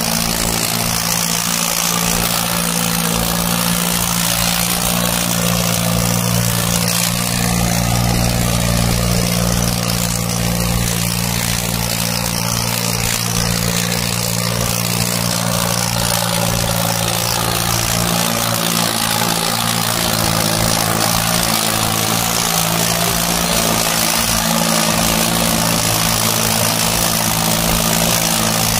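John Deere 5210 tractor's three-cylinder diesel engine running steadily at high revs under heavy load while pulling two harrows through the soil.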